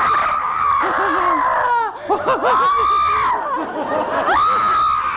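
A woman's hysterical, shrieking laughter in three long, high wails, with other people's lower laughter underneath.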